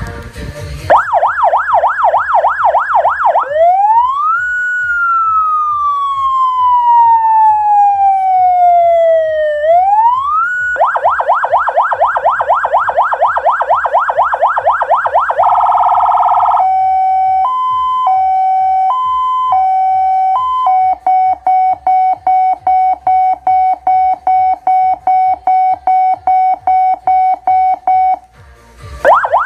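Electronic emergency-vehicle siren cycling through its tones. It plays a fast yelp, then a wail that rises quickly and falls slowly, then the fast yelp again. Next comes a two-tone hi-lo, then a steady tone beeping about three times a second, and after a brief pause the yelp starts again.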